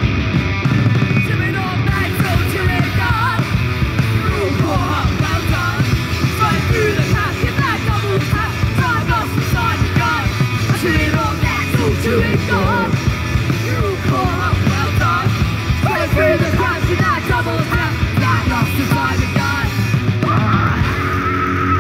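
A rock band playing loud and live, with electric guitar, bass guitar and drum kit.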